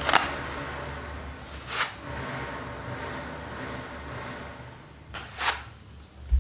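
Fabric pet hair remover brush being swiped through its plastic self-cleaning base to strip off cat hair: three short plastic scrapes spaced a second or more apart, then a dull knock near the end.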